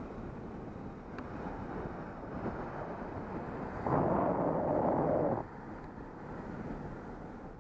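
Wind rushing over the microphone of a moving bicycle, with a louder rush of about a second and a half in the middle as a pickup truck passes close alongside.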